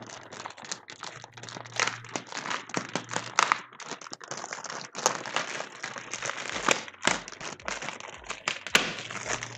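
Clear plastic wrap around a gaming chair's seat crinkling as hands pull and handle it, a continuous run of small irregular crackles.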